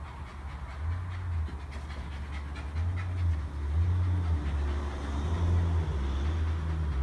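A dog panting, over an uneven low rumble that swells and fades every second or so.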